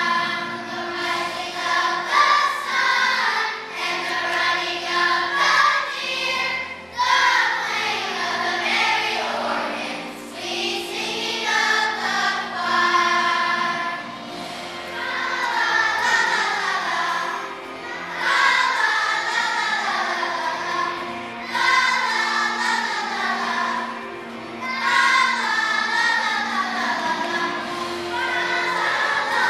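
Children's choir singing a song together, in phrases of a few seconds with short breaks between them.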